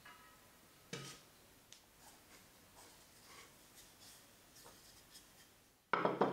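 Pastry being handled on a wooden rolling pin and laid into a fluted metal tart pan: soft rubbing and light ticks, one sharp knock about a second in, and a louder cluster of quick knocks near the end as the dough is pressed into the pan.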